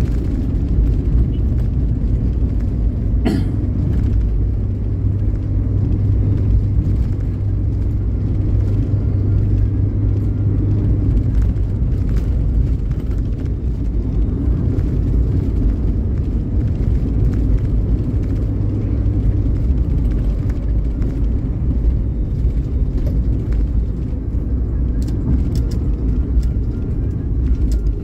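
Vehicle travelling on a road: a steady low rumble of engine and tyre noise, with a brief sharp knock about three seconds in.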